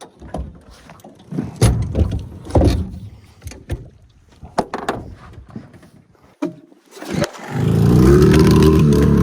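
Scattered knocks and clunks of gear being handled in a small fishing boat, then about seven and a half seconds in a boat's outboard motor starts and runs steadily.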